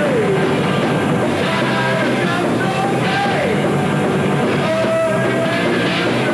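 Heavy metal band playing live: electric guitar and full band under a male singer's held, sliding vocal lines.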